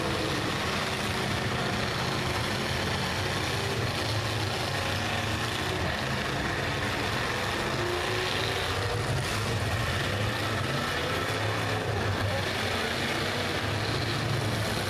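Several demolition derby cars' engines running together as one steady din, with revs rising and falling now and then.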